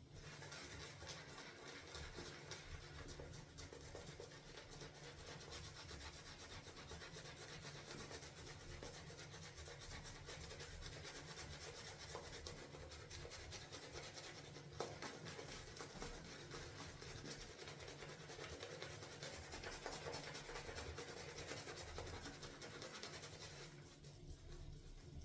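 Synthetic shaving brush steadily swirled through shaving soap lather, giving a soft, continuous wet rubbing and scratching, with a single click about halfway through.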